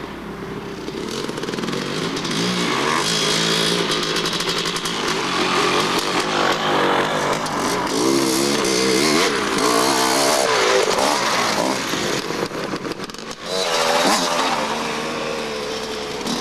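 Dirt bike engines revving as riders pass on the trail, the pitch rising and falling with throttle and gear changes. About thirteen seconds in the sound breaks off briefly and another bike takes over.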